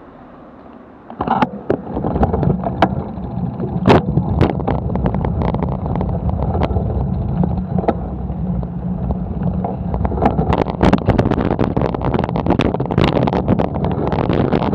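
Bicycle on the move, heard through a handlebar-mounted camera: wind on the microphone and low road rumble, with frequent sharp rattles and knocks from the bike. It starts about a second in, when the bike moves off from a standstill.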